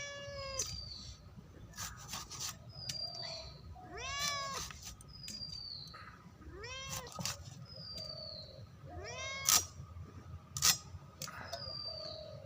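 Domestic cat meowing for fish, four drawn-out meows a few seconds apart. Two sharp knocks come near the end.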